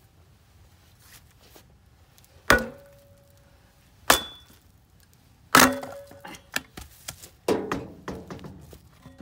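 Heavy blows driving a log down onto the blade of a metal kindling splitter: three sharp strikes about a second and a half apart, some with a brief metallic ring, then a fourth followed by a clatter of smaller knocks as the wood splits and its pieces fall.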